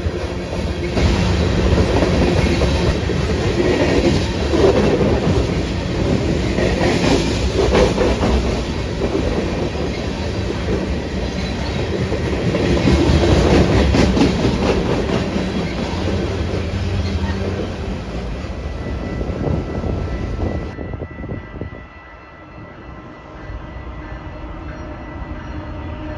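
A long freight train of tank cars rolling past close by: a steady heavy rumble of wheels on rail with a clickety-clack of wheels over rail joints. About 21 seconds in it cuts off suddenly to a quieter, distant train rumble.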